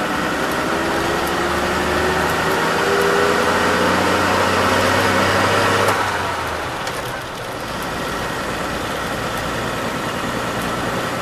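1949 Bedford OB coach's six-cylinder petrol engine pulling as the coach drives, heard from the cab, its note rising as it gathers speed. About six seconds in the engine note drops away suddenly as the throttle comes off, and it runs on quieter and steady.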